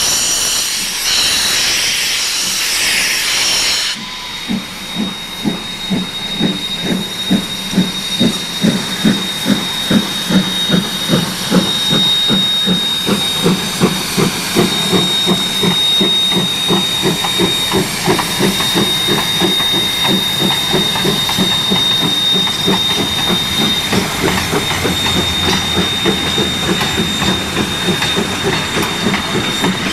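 NZR KA-class 4-8-4 steam locomotive KA 945 starting a train. A loud hiss of steam from its open cylinder drain cocks stops about four seconds in, then its exhaust chuffs begin and quicken as it gets under way. Near the end its coaches roll past with a clickety-clack of wheels.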